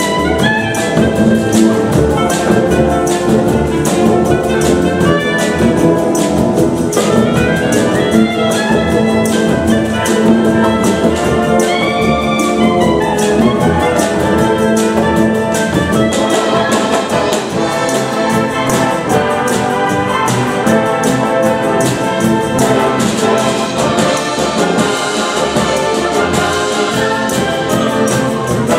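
Full concert band playing a medley of 1960s pop tunes, brass and saxophones carrying the tune over a steady drum-kit beat.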